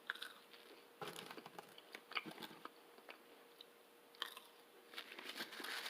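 Faint chewing and biting of fast food, with a few small crunches and mouth clicks here and there.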